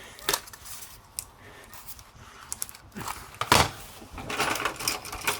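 Clicks, scraping and a louder knock about three and a half seconds in, from the opened power bank's metal-backed casing being handled and worked apart by hand.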